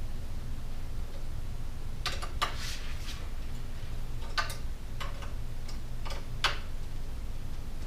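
Socket ratchet clicking in several short runs of strokes, loosening the handlebar riser top-clamp bolts, over a steady low hum.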